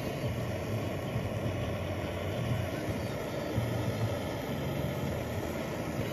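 Butane jet torch lighter burning steadily, its flame hissing as it is held to kindling to start a campfire.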